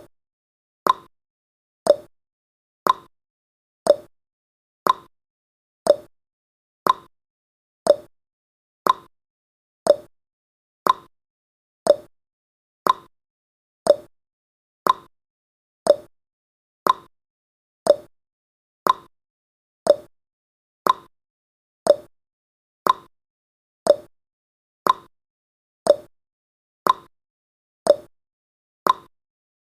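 Countdown timer's tick sound effect: one short, sharp tick every second, evenly spaced, with silence between.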